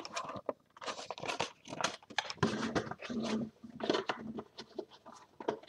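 Cardboard trading-card box being handled and set aside: irregular rustles, scrapes and light knocks.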